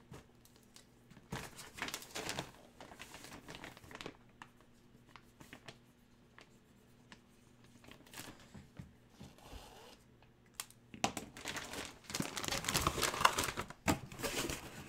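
Hands crinkling and rustling plastic packaging. A few scattered rustles and clicks come in the first few seconds, then a quiet stretch, then louder continuous crinkling from about eleven seconds in.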